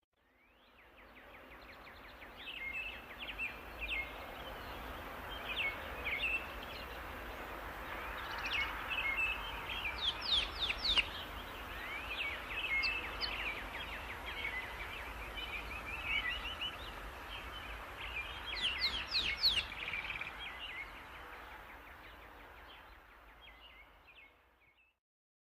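Birds singing: repeated quick chirps and trills, with two bursts of fast rising whistled sweeps, over a steady background hiss. The sound fades in near the start and fades out near the end.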